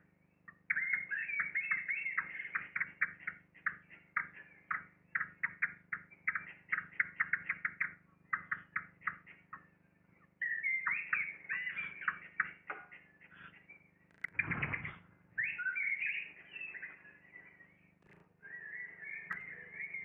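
Eurasian blackbirds at the nest giving rapid runs of short, high calls, several a second, in bursts. About two-thirds of the way through there is one brief rustling thump.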